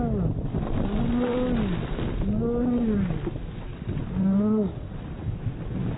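A woman's voice letting out a string of long cries, each rising then falling in pitch, over steady noise.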